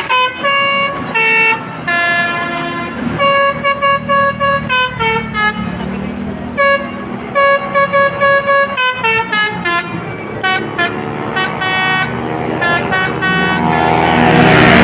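A Basuri multi-tone telolet horn on a QQ Trans bus playing a tune of short stepped notes in quick phrases. Near the end a loud rushing noise swells as the bus comes close.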